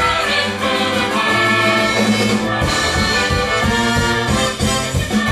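Instrumental music from a stage musical's score: a small orchestra with brass holding chords, with a steady low rhythmic pulse coming in about halfway.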